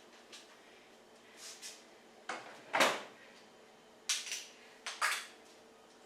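Short kitchen handling noises: about six brief scrapes and knocks of containers and utensils, the loudest about three seconds in.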